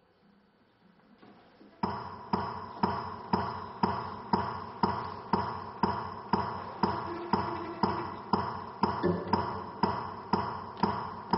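Metronome ticking steadily, about two sharp clicks a second with a short ring, starting about two seconds in, setting the tempo before the cello comes in.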